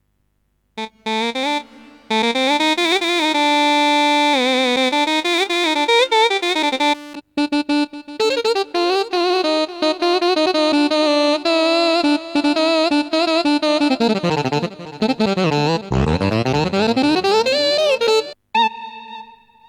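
Korg Krome keyboard playing a lead melody on a Balkan-Turkish ethnic patch from a custom sound pack. The melody starts about a second in, pauses briefly a few times, and near the end the pitch is bent far down and back up.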